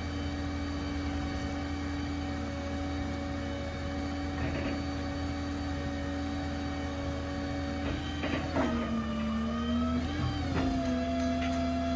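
Stellar 7621 hydraulic crane working its boom: a steady mechanical whine from the hydraulic drive. About eight and a half seconds in the whine drops in pitch, then climbs back and settles a couple of seconds later as the load changes, with a few short clunks along the way.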